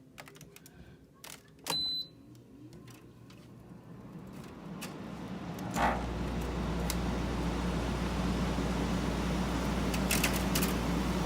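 Frigidaire 12,000 BTU window air conditioner starting up on low cool: a click and short beep about two seconds in, the fan spinning up and growing louder, then about six seconds in the compressor kicks on with a sudden steady low hum under the fan's airflow. It is the unit's first run since last year.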